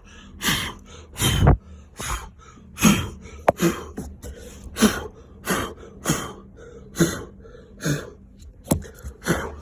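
A person blowing hard in short puffs of breath, about a dozen roughly one a second, to clear styrofoam crumbs off a new electric scooter. A single sharp click comes about three and a half seconds in.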